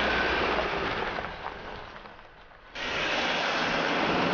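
An SUV driving past on gravel, its tyre and engine noise fading away over a couple of seconds. It is then cut suddenly to another loud drive-past.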